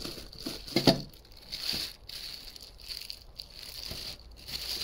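Clear plastic wrapping crinkling and rustling as plastic-wrapped stainless steel cookware pieces are handled, in irregular bursts with a louder sharp crackle about a second in.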